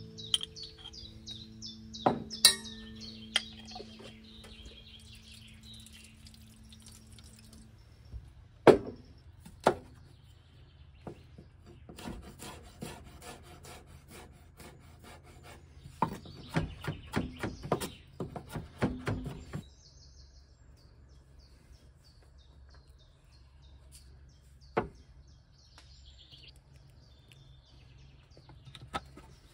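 Chef's knife chopping garlic on a wooden cutting board in a fast run of strokes midway through, with a few sharp knocks of utensils on a steel bowl before it. Birds sing in the background.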